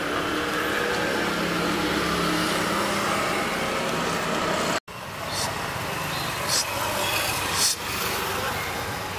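Steady background street-traffic noise, a mix of vehicle hum and faint distant voices. It breaks off for an instant about five seconds in, then returns with a few short, sharp clicks.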